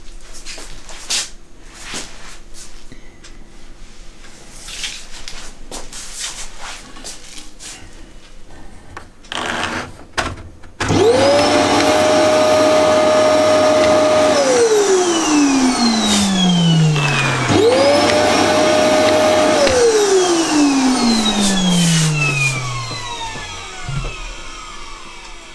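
A dust-extraction vacuum (Sauger) switched on and off twice by the blast gate's reed contact and relay. Each time its motor runs up quickly to a steady high whine, runs about three seconds, then winds down falling in pitch. Before the first start there are scattered clicks and knocks from the gate's Bowden-cable handle being worked.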